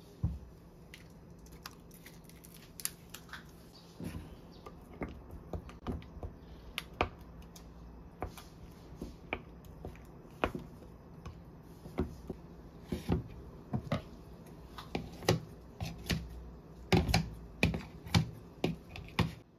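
A wooden chopstick stirring sauce in a glass mug, clicking and scraping against the glass in irregular taps. Near the end, kitchen scissors snip quickly several times through soaked glass noodles in a plastic bowl.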